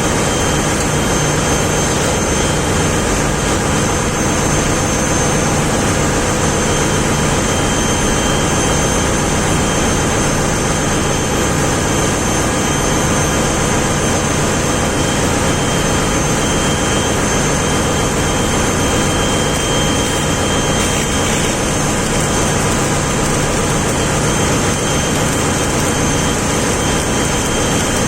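Ship's machinery running with a loud, steady drone and a few constant high whines above it.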